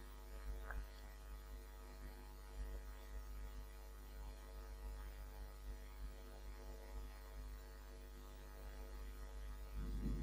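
Steady low electrical mains hum from the recording setup, with a few faint clicks. Near the end there is a brief, louder low rustle.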